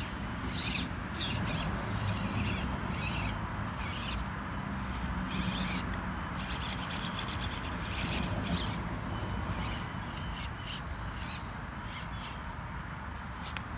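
Axial SCX24 Deadbolt micro crawler scrabbling over the course: short, irregular bursts of rasping scrape as its tires and drivetrain work against the obstacles under stop-start throttle.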